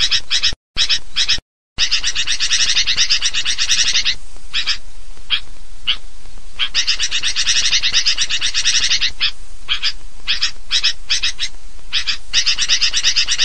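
Sooty-headed bulbul (kutilang) giving noisy, rapid chattering calls: a few short bursts broken by dead silence, then long runs of fast repeated notes with short pauses. A bird-trapper's lure call recording (suara pikat).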